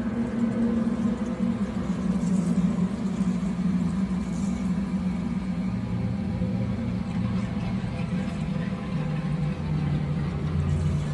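A low, steady rumbling drone of the horror-ambience kind. Its lowest notes shift downward a couple of times, about halfway through and again near the end.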